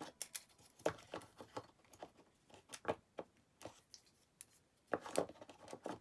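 Irregular light clicks, taps and scrapes of a small plastic power plug being worked back into its slot in a cardboard box insert. The loudest knocks come about a second in and again near the end.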